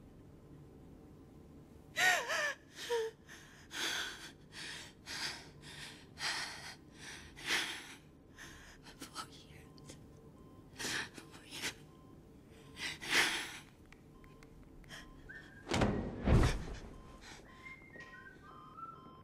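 A woman sobbing in anguish: a string of loud, gasping cries and choked breaths, the first a wavering wail, with faint mumbled words between them. About sixteen seconds in comes a heavy thud, followed by faint short high chirps.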